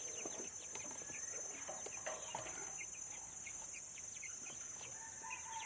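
Outdoor ambience of birds and insects: a steady high-pitched insect drone, with many short chirps scattered through it and one longer held call near the end.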